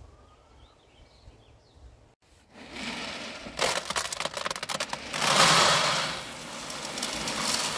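Chicken feed pellets are poured from a plastic bucket into an empty plastic trash can. The first two seconds are quiet. Then comes a clatter of pellets hitting the hollow plastic bottom, which builds about five seconds in to a steady rushing hiss of the pouring stream.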